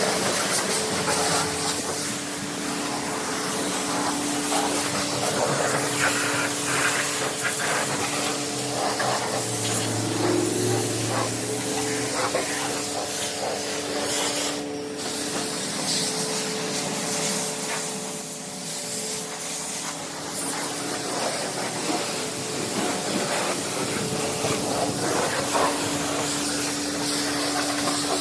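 Self-serve car wash pressure wand spraying water over a car: a steady hiss of spray with a constant hum underneath.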